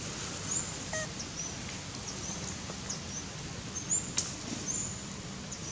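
Scattered short, high-pitched animal chirps, each a quick upward or downward glide, over a steady outdoor background hiss, with a couple of faint clicks.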